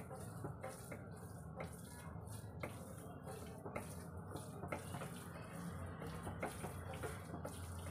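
Spatula stirring and scraping grated carrot and khoa in a kadai, with many short scrapes and knocks a few tenths of a second apart over a steady low hum.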